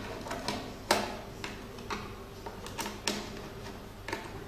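A series of irregular sharp clicks and knocks as the microneedle machine's handpiece and cable are handled against the side of the machine, the loudest about a second in.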